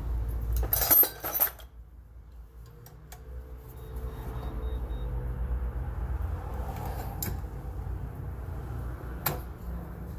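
Steel tools clanking while a pipe and bar are fitted over the T-handle of a screw-type brake caliper piston compressor. There is a loud metal clatter about a second in, then a few sharp clicks over a steady low rumble.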